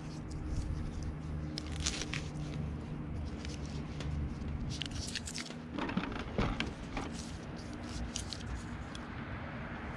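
Butyl tape being unrolled and pressed onto a plastic antenna base: scattered soft crackles, scrapes and taps, with a few sharper clicks about six seconds in. A low steady hum runs underneath.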